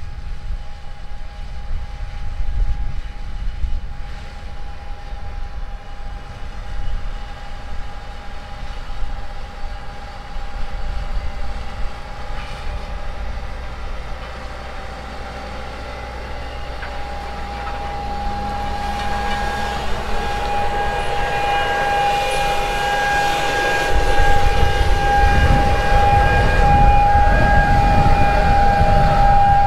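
Fendt 1050 tractor pulling a John Deere N530C air seeder: steady machine running with one high whine held on a single pitch, growing louder over the last third as the rig comes closer. Gusty low rumble of wind on the microphone, heavier near the end.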